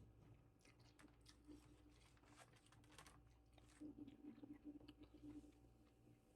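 Faint close-up chewing and mouth sounds while eating, with small scattered clicks and crunches.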